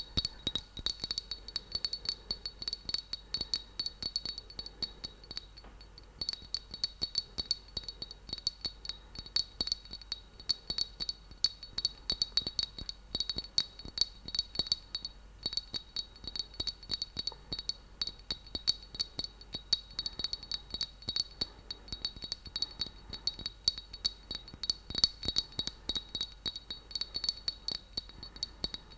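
A small cup handled close to the microphone, clinking and rattling rapidly and continuously with a light ringing tone, pausing briefly twice.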